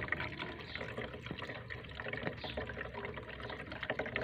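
Bathtub overflow water running down through the overflow connection into the stainless drain pipe: a steady trickle with small drips. It shows that the overflow joint is carrying water during a fill test.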